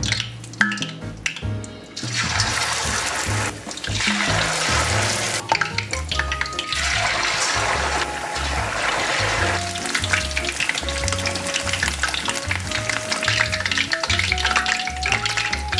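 Battered pork slices deep-frying in a pot of hot oil: a loud, dense sizzle that starts about two seconds in as the pieces go into the oil, then eases somewhat after about ten seconds. Background music with a steady beat plays throughout.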